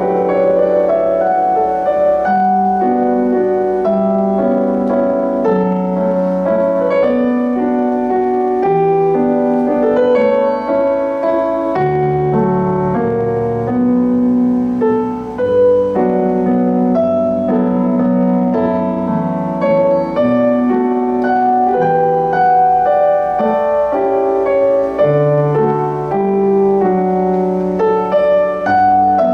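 Keyboard solo in a piano sound: held chords in the low and middle register under a melody line that keeps moving.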